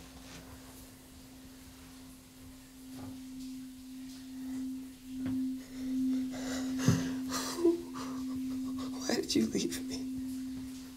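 A single steady, pure low tone held as a film-score drone; it swells and pulses in loudness through the middle and holds to the end. Soft breaths and rustles come in from about six seconds in.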